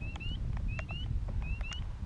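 A small bird calling in short, high, rising chirps, often two close together, repeating about every half second, over a low rumble of wind on the microphone.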